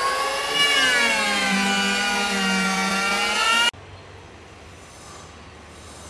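Electric hand planer whining as it shaves an ironwood slab, its pitch sagging as the blades bite and picking back up. The whine cuts off abruptly about three and a half seconds in, leaving a faint low hum.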